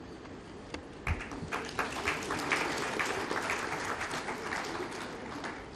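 Audience applauding: a few scattered claps about a second in swell into steady clapping, which tails off near the end.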